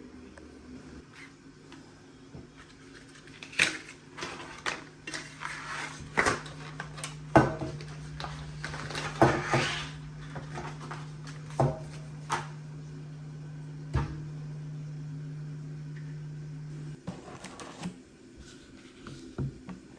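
Kitchen handling sounds: several sharp knocks of dishes and utensils being set down and moved, with some rustling, over a steady low appliance hum that cuts off near the end.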